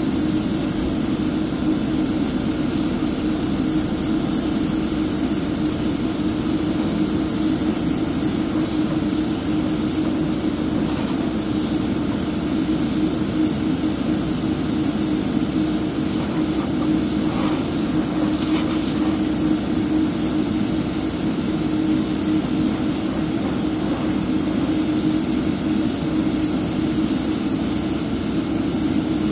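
Airbrush spraying paint: a steady hiss of air over a steady hum, unbroken throughout.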